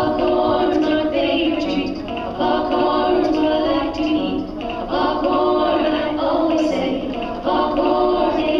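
A children's song about making popcorn, with singing voices in phrases about a second and a half long and short gaps between them.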